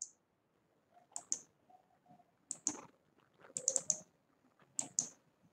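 Faint clicking at a computer: short, sharp clicks, mostly in quick pairs, with a tight run of clicks a little past the middle.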